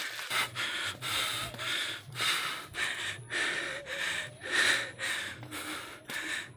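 A man panting hard, taking quick, regular breaths in and out, out of breath from running up a steep hill.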